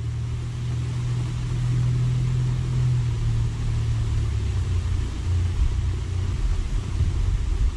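A low, steady engine rumble with a constant hum that weakens after about five seconds.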